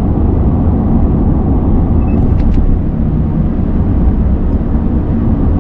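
Steady low rumble of road and engine noise inside the cab of a pickup truck driving along a highway.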